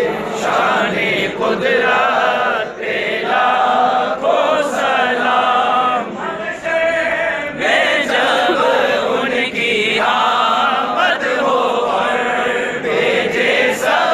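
Large crowd of men chanting a devotional salutation together in unison, with unaccompanied voices.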